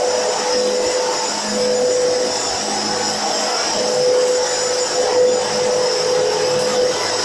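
Upright vacuum cleaner running on a hardwood floor, a steady rush of air with a high whine; a lower hum comes and goes as it is pushed back and forth.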